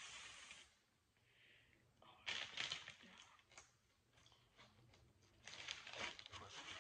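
Plastic icing piping bag crinkling as it is squeezed and handled, in three short bouts.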